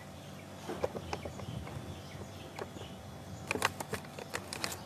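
Light clicks and rustles of hands handling small parts and packaging, with a quick run of sharp clicks about three and a half seconds in, over a steady low hum.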